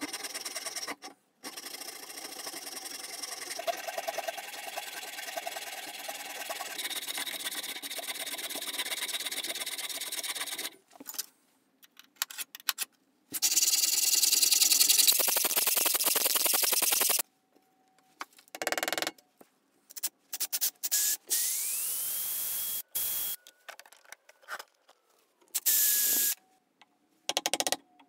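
Handsaws cutting wood in a string of short edited clips: first a long run of steady sawing strokes through a hardwood handle blank, then faster, louder strokes of a frame saw. Short scraping bursts and a small motor whining up in pitch and holding follow in the second half.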